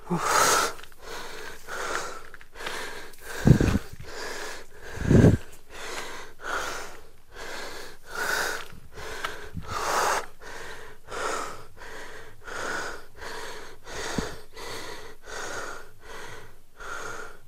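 A man panting hard from a steep uphill climb: quick, noisy breaths in and out in a steady rhythm. Two low thumps come a few seconds in, about a second and a half apart.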